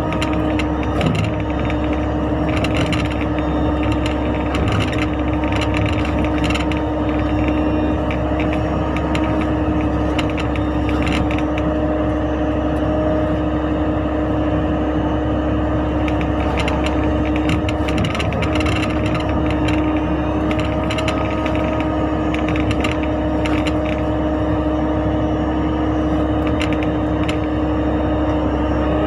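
Mini excavator's diesel engine running steadily at working speed with a constant hum. Scattered clicks and knocks from the machine's working parts come and go.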